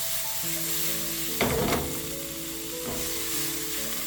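Food sizzling as it fries in a pan, a steady hiss, with background music of held notes over it. A brief louder noise comes about a second and a half in.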